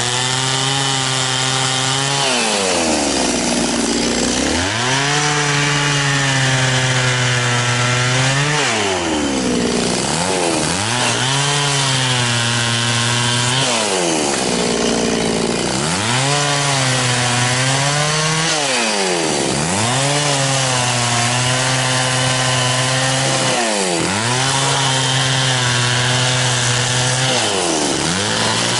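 Echo CS-670 two-stroke chainsaw running at high revs while cutting into a tree trunk. Its pitch drops sharply and climbs back about six times, every four or five seconds.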